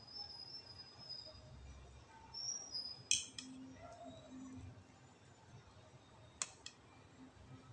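Faint eating sounds: a spoon clinks against the bowl or plate twice, about three seconds in and again a few seconds later, with faint high bird chirps in the background.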